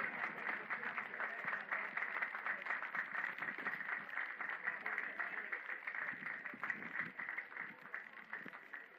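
Spectators clapping, a dense patter of hand claps that thins out and fades toward the end.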